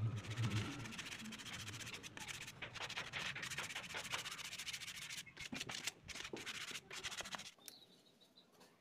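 Sandpaper rubbed by hand against a wooden slingshot fork in quick back-and-forth strokes: a continuous scratchy sanding sound that stops near the end.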